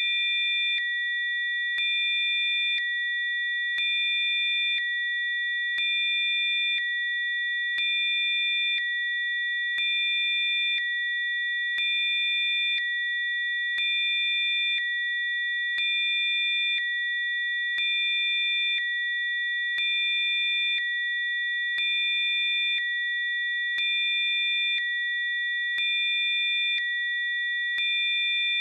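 Several steady, high-pitched electronic sine tones sounding together as Rife frequency tones. A fainter lower tone switches on and off, and the overall level steps slightly, in a regular pattern about once a second.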